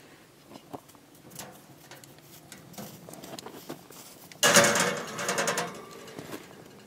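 Metal pizza pan sliding and scraping onto the steel grate of a homemade wood-fired oven, a loud rasping scrape about four seconds in that lasts over a second. Before it come a few light clicks and knocks as the oven's steel door is opened.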